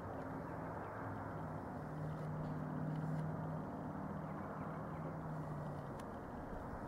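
Steady low engine hum over a noisy background, growing a little louder about two to three seconds in.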